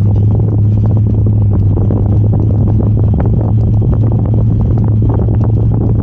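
Four-wheel-drive vehicle driving on a sand track: a steady low drone from engine and tyres with frequent knocks and rattles.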